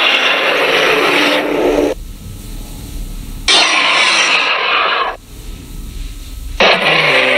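Sound effect of a fictional dinosaur roaring: harsh, raspy roars of about two seconds each. One roar is already under way and ends about two seconds in, a second comes in the middle, and a third starts near the end, with a low rumble in the pauses.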